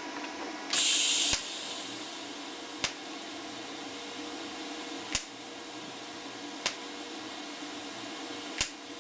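TIG welder in tack-weld mode at 140 A: a loud hissing buzz about a second in as the arc strikes, then a steady faint hum. A sharp click comes every one and a half to two seconds, in step with the 1.5-second tack time.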